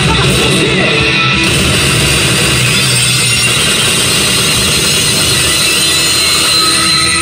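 Loud heavy rock music with electric guitar playing from a Shura no Toki pachislot machine's speakers.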